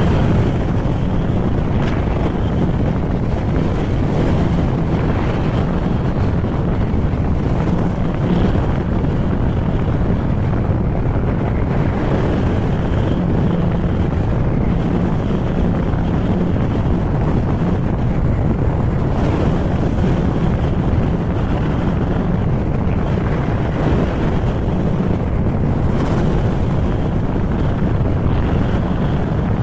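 Steady wind rushing over the microphone of a camera carried on a moving Honda ADV160 scooter, with the scooter's single-cylinder engine running underneath.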